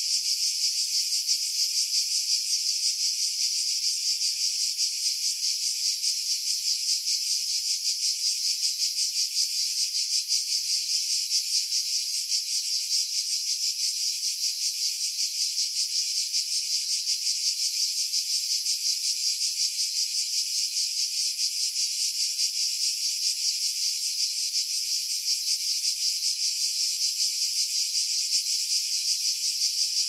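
Cicadas calling together in pine trees: a steady, high, shrill buzz with a rapid, even pulsing, with the low end filtered out of the recording.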